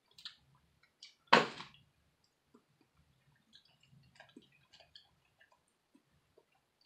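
Boiled crawfish shells being cracked and picked apart by hand: one loud crack about a second in, then scattered small clicks and ticks of shell.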